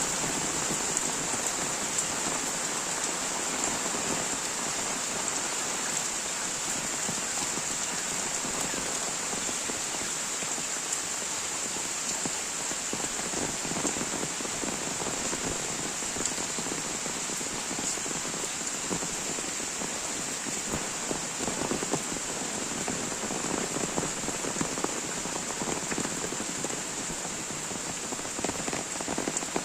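Heavy rain falling steadily: an even hiss thick with the small ticks of individual drops striking surfaces.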